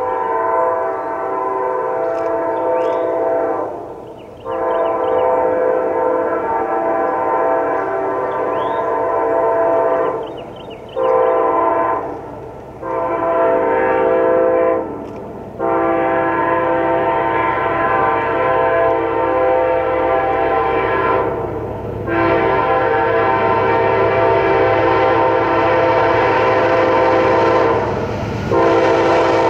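Amtrak passenger locomotive horn sounding a chord in a series of long blasts and one short one, a long-long-short-long pattern that is repeated, growing louder as the train approaches. Near the end the low rumble of the train rises beneath the horn.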